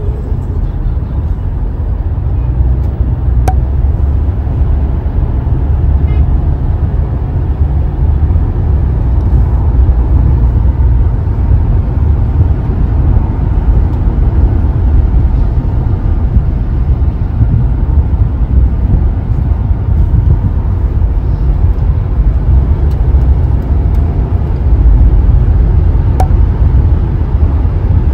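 Steady low rumble of road and engine noise inside a moving Toyota car at highway speed.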